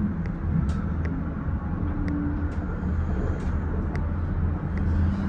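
Steady low rumble and hum of a Disney Skyliner gondola cabin rolling slowly through its station, heard from inside the cabin, with occasional light clicks.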